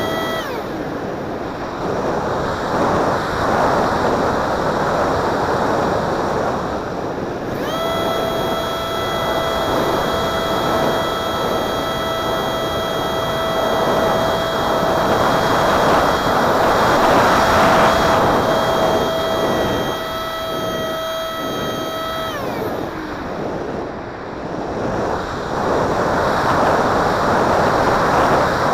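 Wind rushing over the onboard microphone of a Techone Neptune RC flying wing, with the high, steady whine of its electric ducted fan. The whine falls away just after the start, cuts back in about 8 seconds in, holds steady for about 15 seconds, then winds down as the fan slows.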